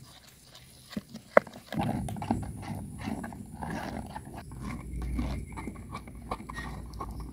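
A metal spoon knocks twice against a plastic bowl about a second in. Then wet flour dough is stirred and pressed in the bowl, a steady mushy rustle with many small clicks.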